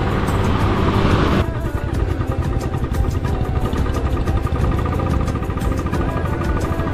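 Motorcycle engine running on the move with a steady tone. A louder rushing noise over it cuts off suddenly about a second and a half in.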